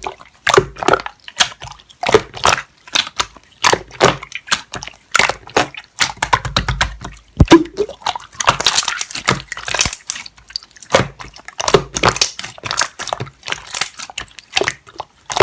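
Slime being handled, squeezed and poked by hand, giving a quick, irregular run of wet clicks and squishes.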